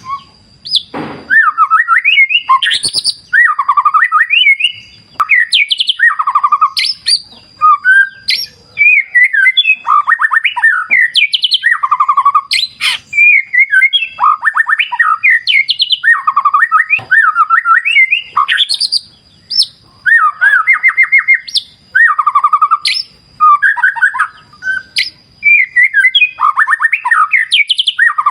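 White-rumped shama (murai batu) singing a long, varied song of loud rich whistles, rapid trills and chattering phrases, one phrase after another with only brief pauses.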